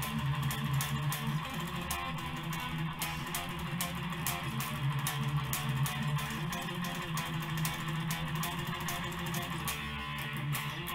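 Amplified electric guitar played with a pick: a continuous run of quickly picked notes, mostly in the low register.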